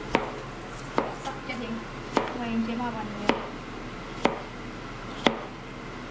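Kitchen knife slicing a cucumber on a plastic cutting board: six sharp chops about a second apart.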